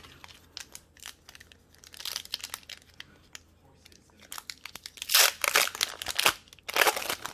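Foil booster pack wrapper crinkling and being torn open, a run of crackles that grows loudest in the last two seconds or so.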